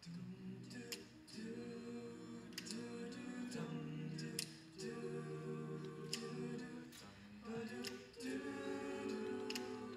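A cappella vocal group singing wordless held chords in close harmony, shifting to a new chord every second or two with short breaths between.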